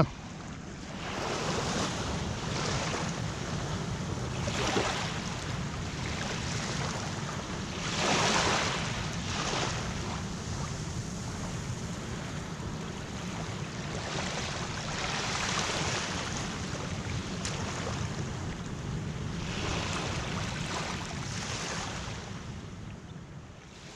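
Surf breaking on a sandy beach, washes rising and falling every few seconds, the loudest about eight seconds in, with wind on the microphone. It fades down near the end.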